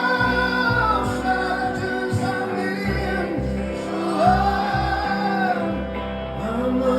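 Live band music with singing: long held vocal notes over a pulsing bass.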